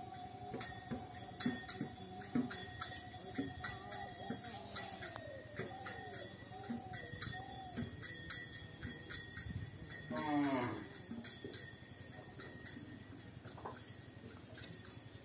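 Light jingling clicks scattered throughout, with a cow mooing once, drawn out, about ten seconds in.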